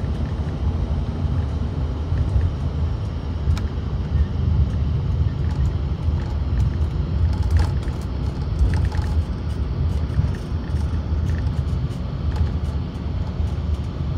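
Cabin noise inside an Embraer ERJ-145 taxiing: a steady low rumble from its rear-mounted Rolls-Royce AE 3007 turbofans and the wheels rolling over the taxiway, with a few light rattles around the middle.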